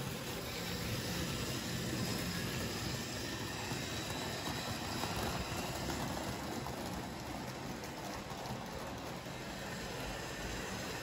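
Several Märklin H0 model trains running at once: a steady whirr of their small electric motors and wheels rolling on the track.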